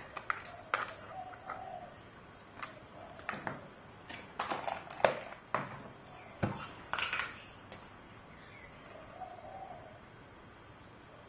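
Scattered light clicks and taps of a spoon against a bowl and containers as small spoonfuls of powder are added to a flour mix, the sharpest about five seconds in. A few short low calls sound in the background near the start and again near the end.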